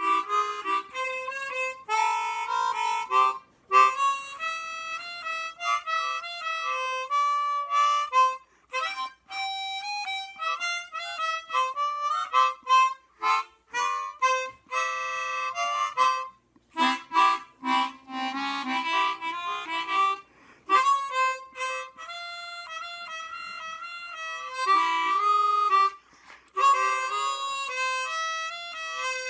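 An old, well-worn Hohner 12-hole Super Chromonica chromatic harmonica played in phrases of single notes and chords, with short breaks between phrases.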